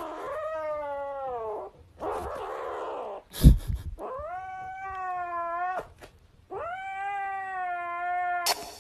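A cat meowing in three long, drawn-out yowls, each held for one to two seconds. A shorter breathy sound comes between the first two, and a sharp knock about three and a half seconds in.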